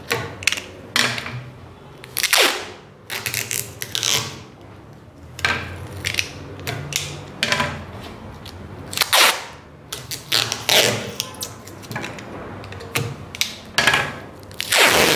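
Adhesive tape being pulled off its roll and torn in short rasping strips, mixed with the crackle of a plastic poster sheet being pressed and smoothed against an aquarium's glass. The sounds come irregularly, with longer rasps about two seconds in and at the very end.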